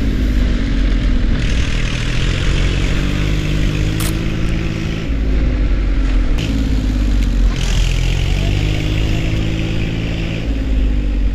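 A farm truck's engine running as it is driven, its revs rising and falling again and again, with a single sharp click about four seconds in.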